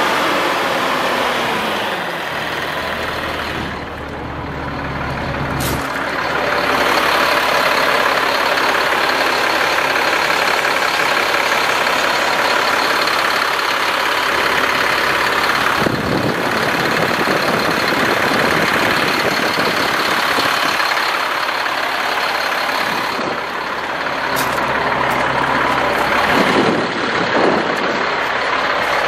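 The Caterpillar C7 diesel engine of a 2006 Chevy C7500 water truck running, heard up close as a loud, steady engine noise with a brief dip about four seconds in.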